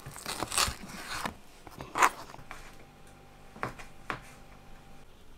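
Kitchen knife slicing through a slab of pork fat on a plastic cutting board: scratchy cutting noise in the first second or so, then a sharp knock of the blade on the board about two seconds in and two lighter taps later.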